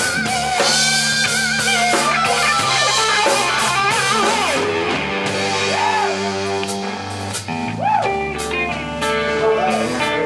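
Live heavy rock band playing: a lead electric guitar on a white double-neck guitar plays long notes that bend up and down with vibrato, over drums, cymbals and bass.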